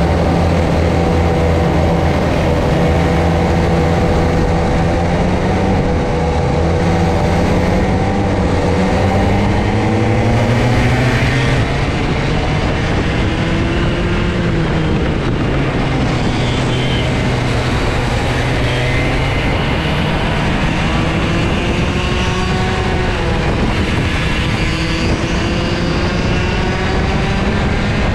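Two-stroke racing kart engines running at high revs in a close pack. Their pitch climbs steadily for about the first ten seconds, drops, then rises and falls repeatedly with the throttle through the corners, with several engines sounding at once.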